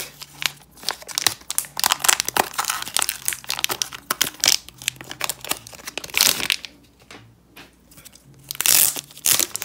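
Black foil trading-card pack wrapper crinkling and crackling irregularly as it is pulled open by hand, with a brief quieter spell about seven seconds in.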